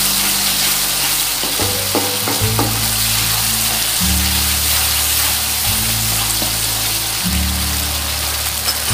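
Curry spice paste of onion, garlic, ginger and curry powder sizzling in hot oil in a non-stick wok while a spatula stirs it. The oil is starting to separate from the paste, the sign that the spice base is cooked through. Low steady tones run underneath and change every second or two.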